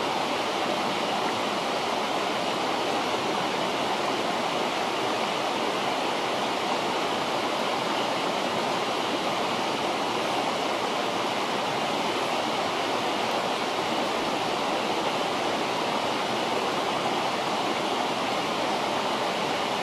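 River water rushing steadily, a constant even wash of flowing water.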